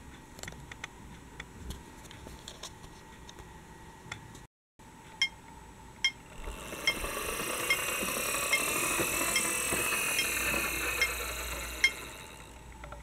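Regular ticking, a bit more than one tick a second, from a crossing signal. From about six seconds in, a rushing hiss with a wavering whine swells and then fades as a toy tram passes.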